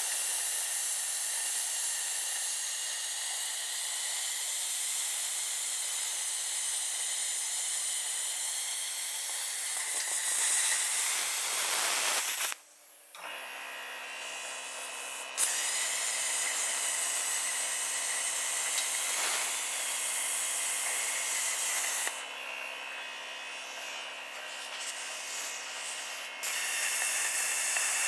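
Plasma cutter arc hissing steadily as it cuts through a steel car wheel rim. The hiss breaks off about halfway through, leaving a low steady hum, then starts again a few seconds later and eases off for a few seconds near the end.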